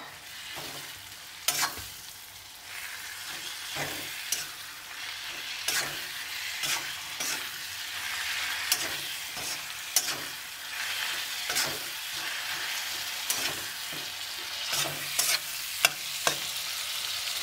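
A spoon stirring fresh fenugreek leaves into potatoes frying in spices in a pan. A steady sizzle builds a few seconds in, and the spoon knocks and scrapes against the pan about once a second.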